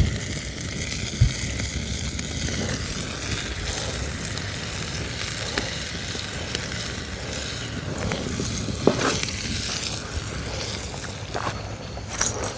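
Hamburger patties frying in a skillet over a campfire: a steady sizzle with scattered small pops and clicks, and a sharp knock about a second in.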